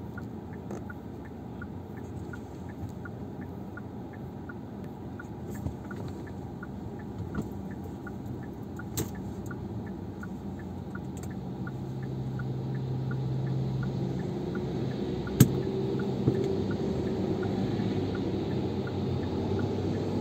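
Car driving on a wet road, heard from inside the cabin: a steady rumble of tyres and engine with a light regular ticking about twice a second. In the second half a low engine hum from lorries close ahead grows louder, and a sharp knock sounds about three-quarters of the way through.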